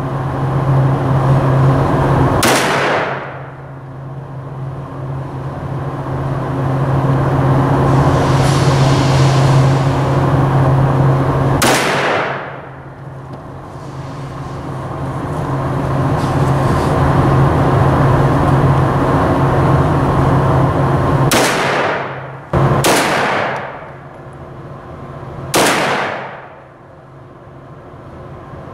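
Five 9mm shots from a Glock 34 pistol, each with a long echoing tail off the concrete range walls. They come about ten seconds apart at first, then three follow within about four seconds. A steady low hum fills the gaps between shots.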